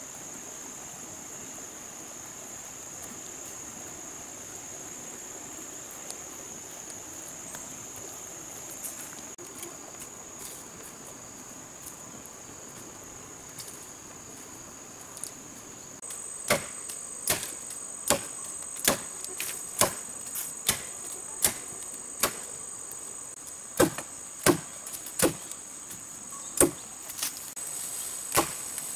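Insects keep up a steady high-pitched drone. About halfway through, a blade starts chopping into a bamboo stem: a regular run of sharp strikes, a little more than one a second, with one short pause.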